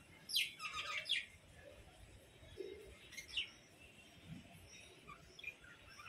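Budgerigars chirping: a quick run of chirps about half a second in, another short chirp around three seconds in, then a few faint ones.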